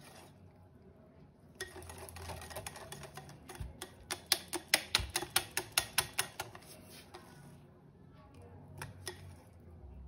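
A utensil striking against a mixing bowl while batter is mixed: a scraping stretch, then a run of sharp, even clicks at about four a second, then a few scattered clicks near the end.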